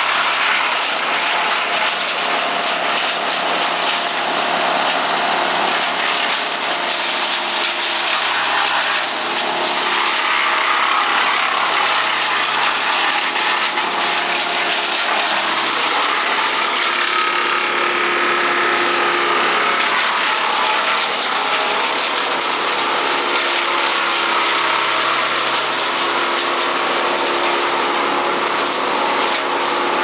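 Vermeer BC1000 brush chipper running loud and steady while cut brush and branches are fed through it, the machine's note shifting now and then.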